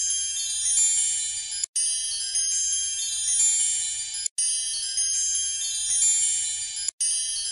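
A looped twinkling chime sound effect: a shimmer of many high, bell-like tones. It cuts out for an instant and starts over three times, about every two and a half seconds.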